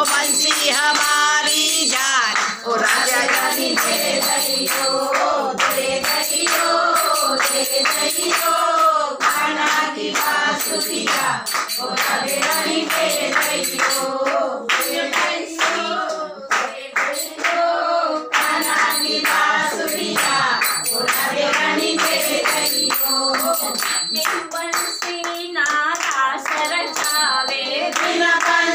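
A group of women singing a Hindu devotional bhajan together, with rhythmic hand-clapping and jingling percussion keeping the beat.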